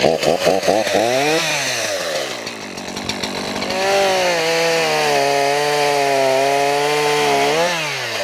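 Echo two-stroke gas chainsaw revving. It gives a few quick rising-and-falling throttle blips, then holds full throttle at a steady pitch for about four seconds, and falls off near the end.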